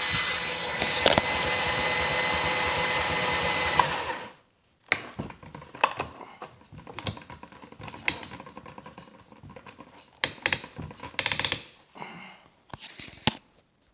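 DeWalt 20-volt cordless drill running steadily with a whine as it drives a coffee grinder's burr, then cutting off abruptly about four seconds in. Scattered clicks and knocks of handling follow.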